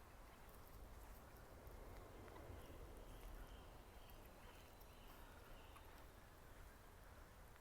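Near silence: faint outdoor background with a low steady rumble and a few faint, short bird calls in the middle.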